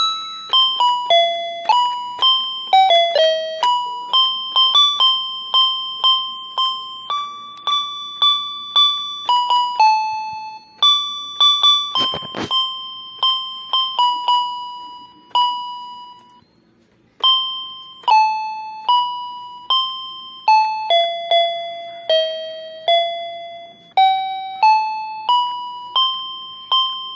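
Background music: a bell-like keyboard melody of single notes, each struck and dying away, about two a second, with a brief break about two-thirds of the way through.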